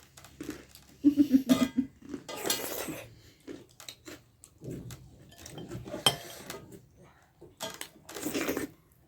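Eating sounds at a meal of dhindo and nettle curry: chewing and mouth noises with dishes and utensils clinking now and then. About a second in comes a short pitched throat sound from the eater, likely the full-stomach noise she apologises for.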